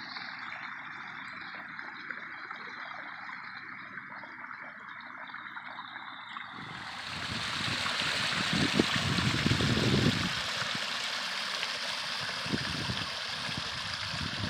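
Water running down the rocks of a backyard pondless waterfall, a steady splashing that grows louder and brighter about halfway through, with a few low rumbles in the second half.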